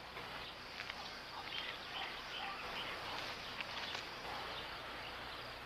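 Outdoor background ambience on a film soundtrack: a steady hiss with faint, scattered bird chirps.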